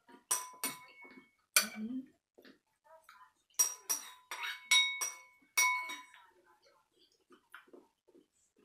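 Metal spoon clinking against a ceramic bowl while eating soup: a run of sharp ringing clinks, then a longer run from about three and a half seconds in.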